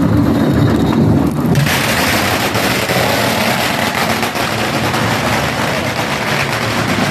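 Dense, rapid crackling of firecrackers, cutting in abruptly about a second and a half in.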